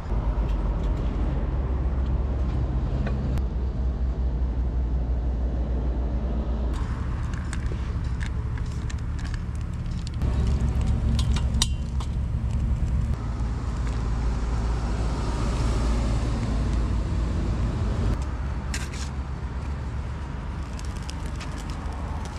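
Portable camping gas stove burning with a steady low roar, with a few light clinks of cookware.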